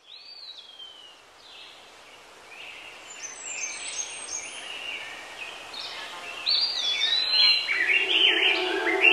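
Birds chirping and whistling, a dense chorus that grows louder. Near the end a steady held musical tone comes in under it.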